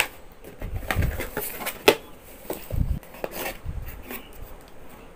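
Unboxing handling noise: a cardboard box's flaps and paper inserts being moved and set down, with several sharp taps and dull thumps, the loudest tap a little under two seconds in.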